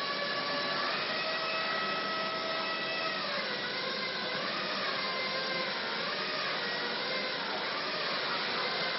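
Atlanta Stretch Sfera self-propelled stretch-wrapping robot driving round a pallet, its electric motors making a steady whine. The pitch steps up about a second in, then drops and wavers from about three seconds on.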